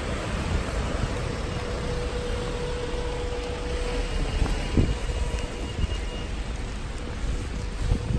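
A van's engine and tyres on wet cobblestones, over a steady low rumble of wind on the microphone, with a single soft knock about halfway through.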